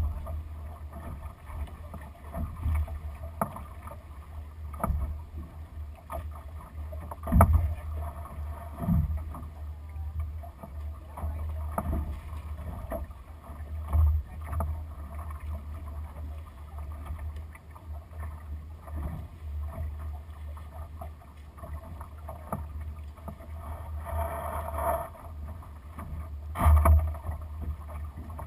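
Onboard sound of a Lightning sailing dinghy under way in light wind: water washing along the hull and wind rumbling on the microphone, broken by a few short knocks, the loudest near the end.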